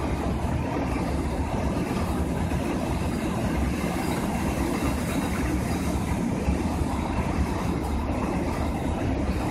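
Container wagons of a long freight train rolling past steadily, the noise of steel wheels running on the rails.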